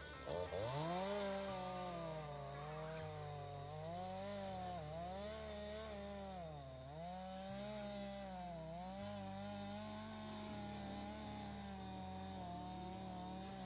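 Two-stroke chainsaw revving up about half a second in and cutting through a large, dry tree trunk at full throttle. Its engine pitch dips three times as the chain loads up in the wood, then it falls away at the end.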